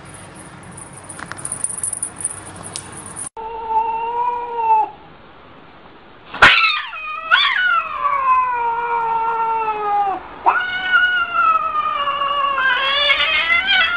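A domestic cat's defensive yowling: a short cry, then after a sharp burst about six seconds in, long drawn-out wails that slide down in pitch and start again.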